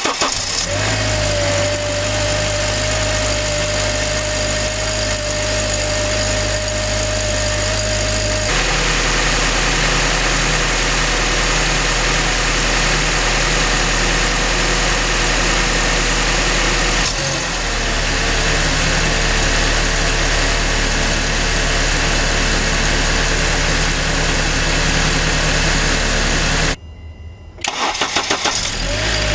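High-mileage Honda Accord engine (close to 400,000 km) idling just after a cold start, a steady whine over the running, its note shifting lower about a third of the way in and again past halfway. Near the end the sound drops off briefly, then the engine is cranked and starts from cold again.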